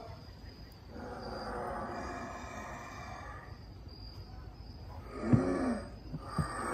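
Halloween animatronic sound effects: a drawn-out eerie droning tone, then about five seconds in a loud, arching groan-like cry as the plague-doctor prop's eyes light up, followed by a couple of short knocks.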